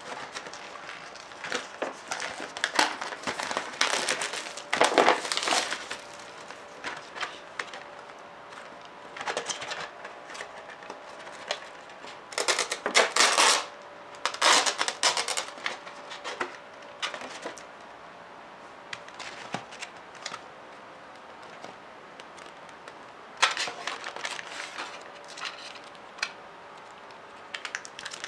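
Crinkling and tearing of the plastic film wrap and packaging of an instant ramen cup as it is unwrapped, the lid peeled back and the seasoning sachets taken out, in bursts of crackling rustle with quiet gaps between.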